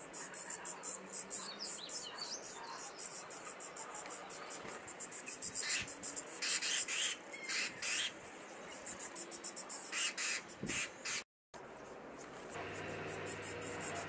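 European starling nestlings begging inside a wooden nest box: a fast, continuous run of thin, raspy high-pitched calls. The calls swell into louder, fuller bursts around the middle, when an adult starling is at the box.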